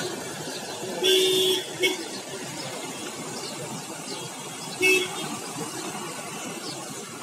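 Street traffic with vehicle horns honking: a half-second horn blast about a second in, a short toot just after it, and another short blast near the five-second mark.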